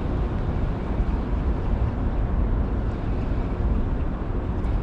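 Wind buffeting the microphone: a steady low rumble with a fainter hiss above it.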